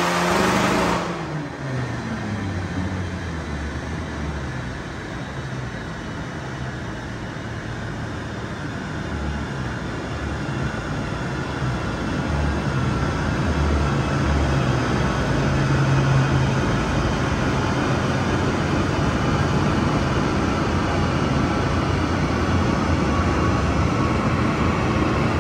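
Audi A3's 1.9 TDI Pumpe-Düse diesel engine on a chassis dyno: the revs fall away about a second in as the power run ends. After that, a steady rumble of the engine and spinning dyno rollers goes on and grows slowly louder.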